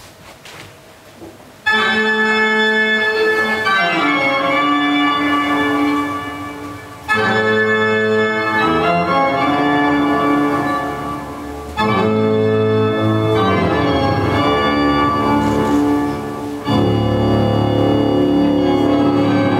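Organ music. It is quiet for the first couple of seconds and then comes in suddenly loud. Each new phrase starts abruptly on full chords, about every five seconds.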